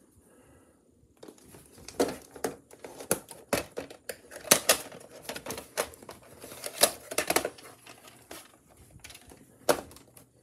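Plastic VHS clamshell case and cassette being handled, most likely the case being opened and the tape taken out. A string of irregular plastic clicks and knocks begins about a second in, with the loudest knocks near the middle and another near the end.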